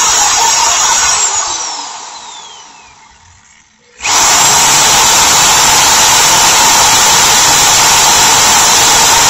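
Corded electric drill drilling into a die-cast Hot Wheels car's base to take it off. About a second in the motor is let off and winds down with a falling whine, then it starts again sharply about four seconds in and runs steadily.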